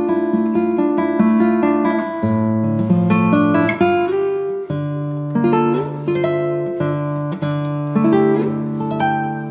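Background music: an acoustic guitar plucking and strumming chords.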